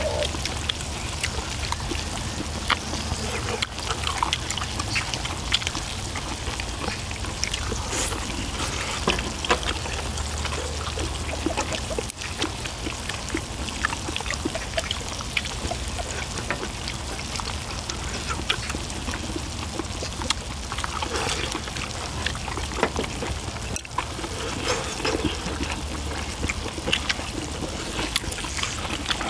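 Pre-grilled pork intestines (makchang) sizzling steadily on a cast-iron pot-lid griddle over charcoal, with many small crackles and chopstick clicks against the metal, and close-up chewing.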